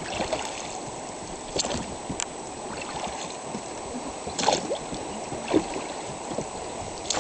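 Steady rush of river water around a drifting inflatable raft, with a few short sharp splashes and knocks, the loudest about four and a half seconds in.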